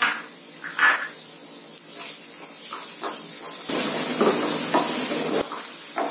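Onion, coconut and freshly added chopped tomato sizzling in a non-stick frying pan, stirred with a spatula that scrapes across the pan. The sizzle grows louder a little past halfway. It opens with two sharp knocks about a second apart.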